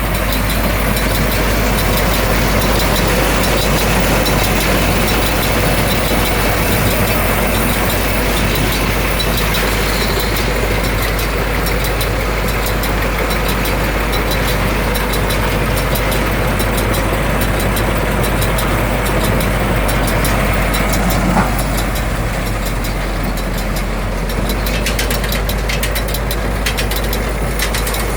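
Engine running steadily at a constant speed, most likely the tractor hooked to the round baler, with one short knock about two-thirds of the way through.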